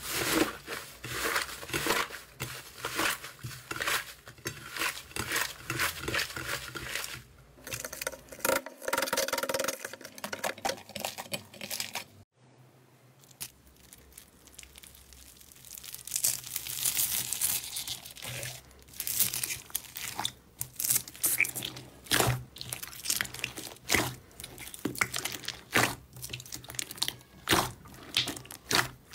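Hands kneading and pulling apart fluffy slime, a dense run of soft crackling and tearing sounds. After a brief quiet break about twelve seconds in, a hand presses into a bowl of small foam beads and hands then squeeze bead-filled slime, with crisp crunching and crackling clicks.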